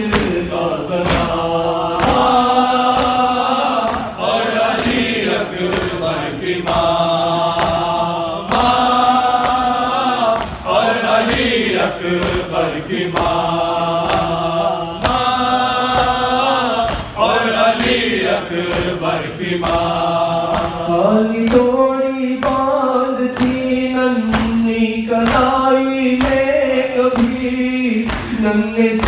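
A male reciter sings a nawha, a Shia lament, through a microphone with a group of male voices chanting along. Under the singing runs a steady beat of hands striking chests (matam).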